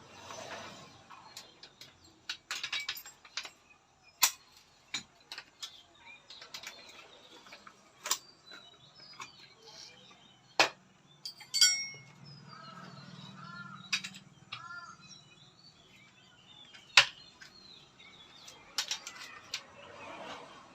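Irregular sharp knocks and clicks from hand work on a motorcycle rear shock absorber, with birds chirping in the background.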